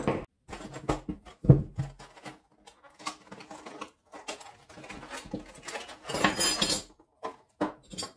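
Oscillating multi-tool accessories and their carry case being handled and unpacked: an irregular run of small clicks, knocks and rattles as blades and parts are lifted out and set down, with a louder knock about a second and a half in and a short rustling patch around six seconds in.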